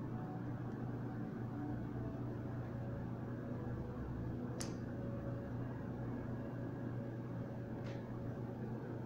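Two small sharp clicks of a plastic clothespin being clipped onto fingers, one about halfway and one near the end, over a steady low room hum like a fan.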